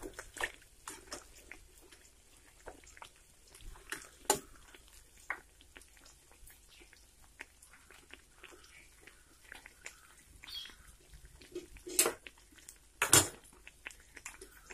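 Egg bajjis deep-frying in hot oil in a steel kadai: scattered crackles and pops of the oil, with a steel slotted spoon clinking against the pan at the start. There are a few louder sharp pops, the loudest two near the end.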